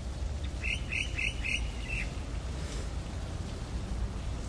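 A bird calling about a second in: four quick high notes and then a short held note, over a steady hiss of rain.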